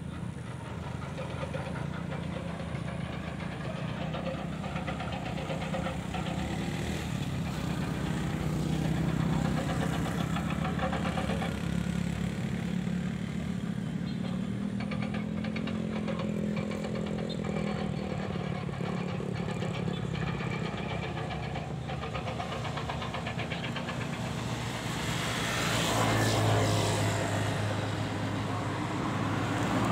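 Motor vehicle engines running nearby, with vehicles passing by; one passes louder near the end.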